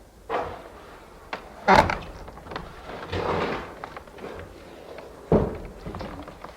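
Wooden church door creaking and banging shut, with two loud bangs, one about a second and a half in and one near the end, and smaller knocks, snaps and a creak in between.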